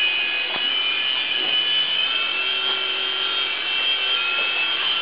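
Radio-controlled toy helicopter's small electric motors and rotors whining steadily in flight, a high-pitched buzz that holds a steady pitch.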